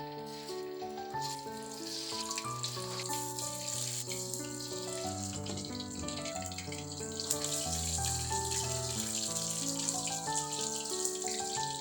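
Water running steadily from a kitchen tap, a little stronger about two-thirds of the way through, under background music with sustained chords and a bass line.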